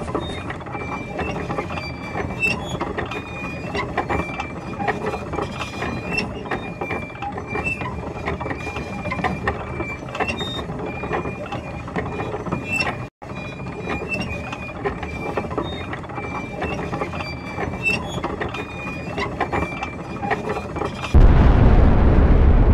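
Rapid mechanical clicking and ratcheting, with short high beeps scattered through it; it drops out for an instant about thirteen seconds in. Near the end a much louder, deep rumbling noise cuts in suddenly.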